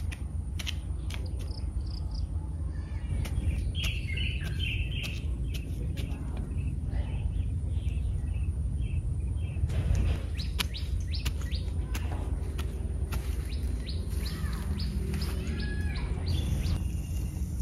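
Birds chirping in runs of short, high calls over a steady low rumble, with scattered light clicks.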